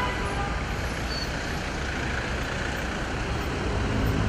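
Steady street traffic noise: a low rumble of passing vehicle engines and tyres, swelling slightly near the end.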